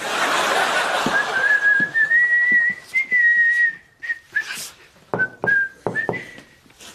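A brief rush of noise, then a man whistling one long, slowly rising and wavering note. This is followed by four knocks on a wooden door, with short whistled notes between them.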